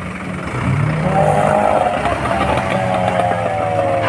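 Fishing boat's engine revving up about a second in as the boat drives through the surf onto the beach, then its pitch slowly falling as it eases off, over the wash of breaking waves.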